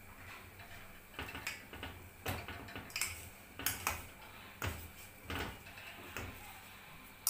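Metal fork clinking and scraping against the inside of a stainless steel pot as noodles are stirred in hot water, a string of irregular strokes, with one sharp click at the very end.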